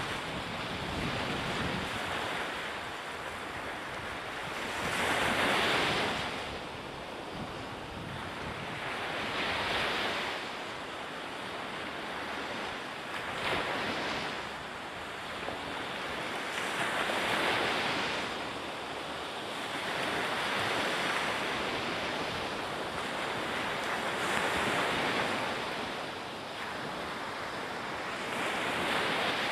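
Rushing sea water and wind noise, with no pitched sound in it, swelling louder and easing again every few seconds.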